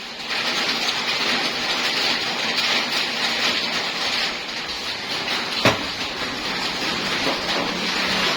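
Electric arc welding: a steady crackling, sizzling arc, with one sharp click a little past halfway.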